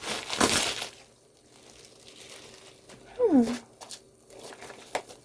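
Plastic packaging crinkling and rustling as a wrapped package is opened, loudest in the first second. A short voice-like sound falling in pitch comes about three seconds in, and a couple of light clicks come near the end.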